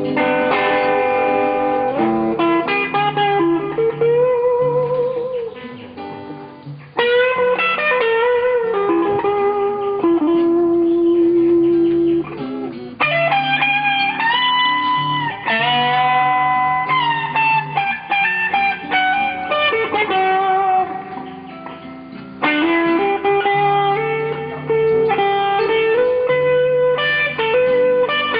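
Instrumental music: an electric guitar plays a lead line of held, bending notes with vibrato over a steady bass.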